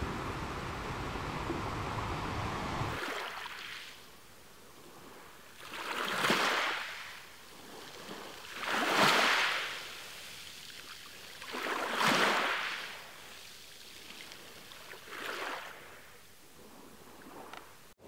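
Sea waves. First a steady rush of surf with a low rumble. About three seconds in it changes abruptly to small waves washing, each swelling and fading in a soft hiss, four times about three seconds apart.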